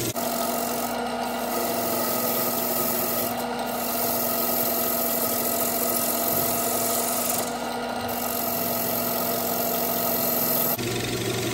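A handful of wood shavings pressed against an ambrosia maple bowl blank spinning on a wood lathe: a steady rubbing hiss over the constant hum of the lathe.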